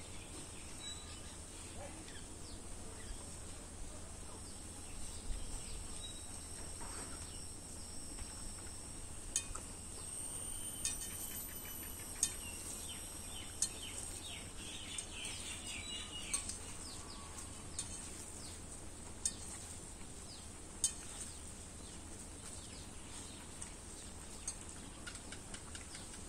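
Quiet outdoor ambience during a meal eaten by hand from stainless steel dishes: a few light, sharp clinks of the steel plates and bowls, and small birds chirping for a few seconds around the middle, over a steady high-pitched whine.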